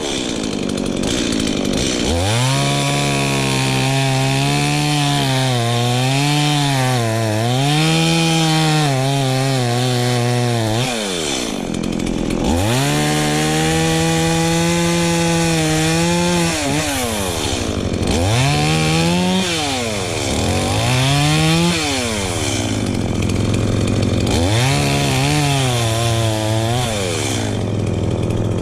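Two-stroke chainsaw cutting into a tree to fell it. The engine revs up about two seconds in and holds high while its pitch wavers and sags as the chain loads in the cut. It drops back several times, briefly about 11 s in and in quick rev-and-release pulls around 18 to 21 s, before it runs up again.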